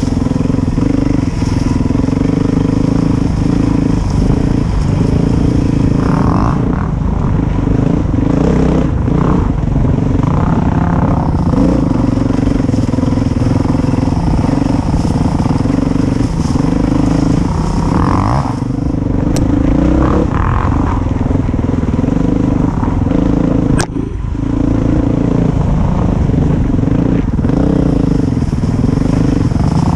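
Dirt bike engine running along a singletrack trail, its note rising and falling with the throttle. Two sharp clicks come about two-thirds of the way through.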